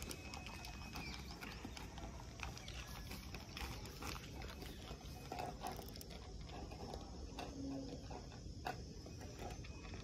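Stray dogs eating from bowls and snuffling close by: scattered small clicks and chewing sounds over a steady low rumble.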